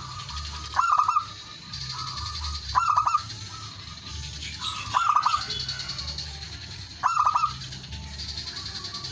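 Male zebra dove (perkutut) cooing its territorial song, a phrase of quick soft notes ending in a louder burst of coos, repeated about every two seconds, four times. Behind it runs a steady high buzz that comes and goes.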